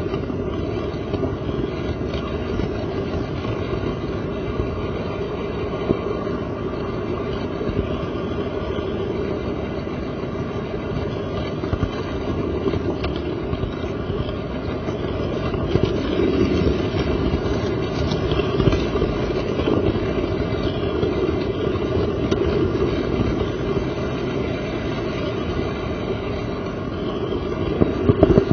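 HO scale model train running along the track, heard close up from on board: a steady rolling rumble with the locomotive's motor hum, scattered small clicks of wheels over rail joints, and a cluster of louder clicks near the end.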